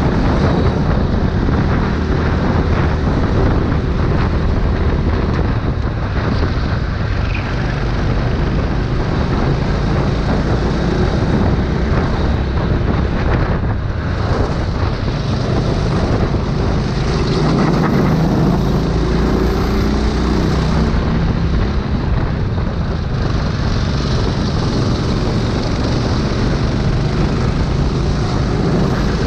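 Go-kart engine running hard, its note rising and falling with the throttle, mixed with wind rushing over the onboard microphone.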